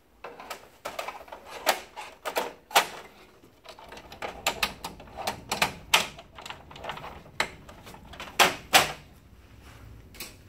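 Hard plastic clicks, knocks and rattles as the outer access panel of an HP LaserJet M712/M725 printer is fitted back into place, ending in two louder snaps close together a couple of seconds before the end as it latches.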